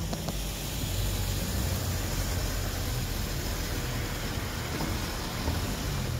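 Steady outdoor rumble and hiss of wind and traffic noise on the microphone.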